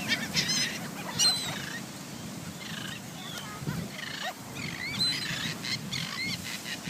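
A flock of gulls calling over one another: many short, high squealing cries in quick succession, crowding around to be fed.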